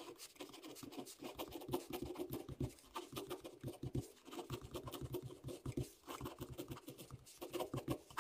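Faint scratching of a ballpoint pen on paper as letters are written in quick, irregular strokes.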